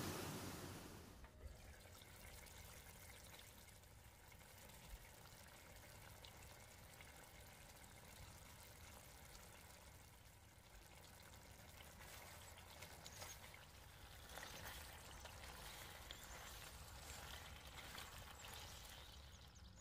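Near silence: faint steady background hiss with a few faint clicks, after a louder hiss fades out about a second in.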